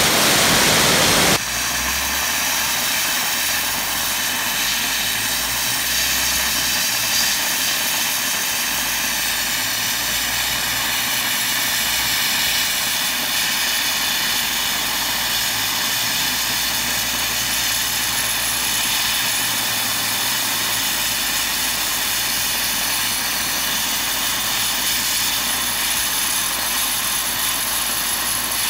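Dry ice blasting nozzle firing a loud, steady hissing blast of compressed air and dry ice, stripping caked bitumen off a tyre's rubber. The blast is a little louder for about the first second and a half, then holds even.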